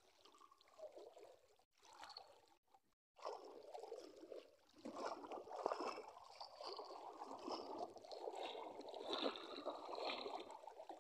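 Legs wading through shallow river water: repeated sloshing and splashing. It is faint at first, with short cut-outs, and steadier and louder from about three seconds in.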